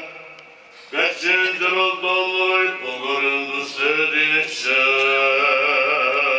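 A male voice chanting an Orthodox liturgical chant in a long, melismatic line with wavering pitch. The previous phrase dies away in the church's echo, and the chant resumes about a second in.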